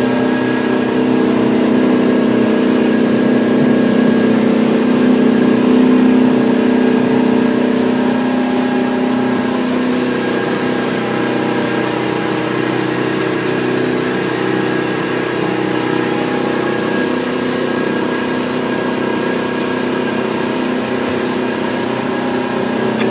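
Hardy Navigator motor boat's engine running steadily under way, heard from inside the wheelhouse; its note softens about ten seconds in.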